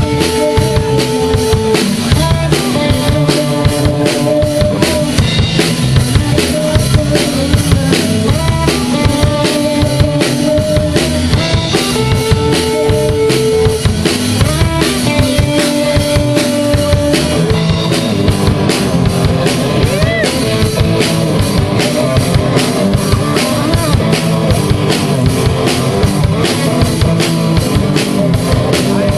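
Live rock band playing an instrumental passage, with a drum kit driving a fast steady beat of bass drum and snare under held guitar notes.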